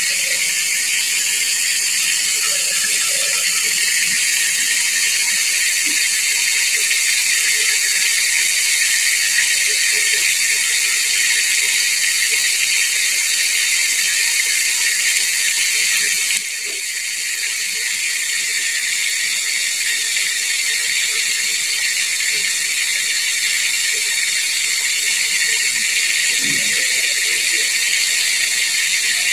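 Whole chicken deep-frying in hot oil in a small pot: a steady sizzle of bubbling oil. About halfway through the sound drops suddenly and swells back over a couple of seconds.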